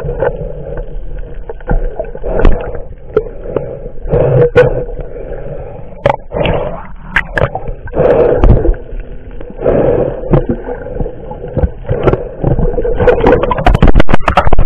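Muffled underwater sound through an action camera's waterproof housing: a snorkeler's breaths through the snorkel swell every couple of seconds, with scattered knocks against the housing. Near the end a quick run of clicks and splashing comes as the camera churns through bubbly water.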